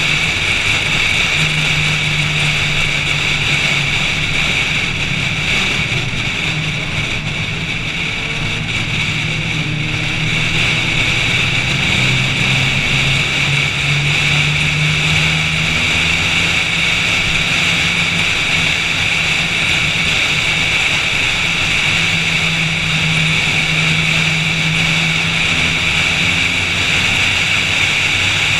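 A car's engine running hard on track, its note rising and falling with throttle and gear changes and easing off for a few seconds about seven seconds in, under a steady loud rush of wind noise.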